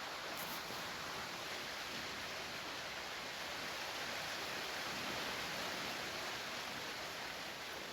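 Steady rain falling, an even hiss without distinct drops or thunder.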